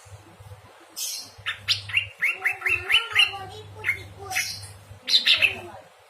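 Songbird singing: a fast run of short, bright, repeated chirps, then further scattered sharp notes.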